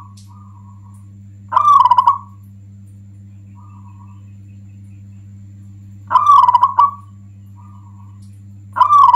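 Zebra dove (perkutut) singing loudly: three short bursts of rapid cooing a few seconds apart, with softer single coos between them. A steady low hum runs underneath.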